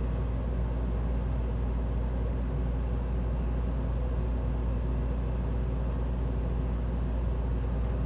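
Steady low hum with a faint hiss, with one faint tick about five seconds in.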